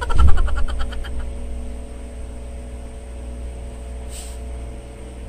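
A steady low hum throughout, with the soft rustle of a cotton shirt being shaken out and folded by hand and a short hiss of cloth about four seconds in.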